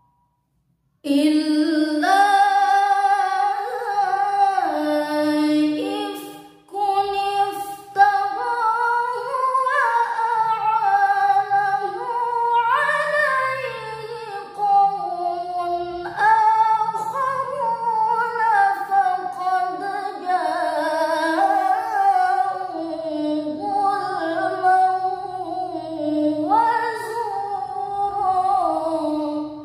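A woman's voice reciting the Qur'an in melodic chant (tartil), with long held notes and ornamented turns in pitch. The chant begins about a second in and breaks off briefly about six seconds in.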